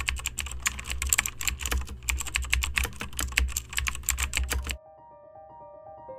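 Rapid typing on a computer keyboard, a fast run of keystroke clicks that stops suddenly about three-quarters of the way through. Quiet music of single stepping notes then comes in.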